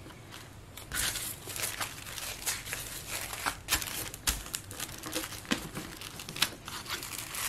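A sheet of deli paper crinkling and rustling as it is laid down and rubbed by hand over an acrylic-inked card stock leaf to press the print. It comes as a run of short, scratchy rustles starting about a second in.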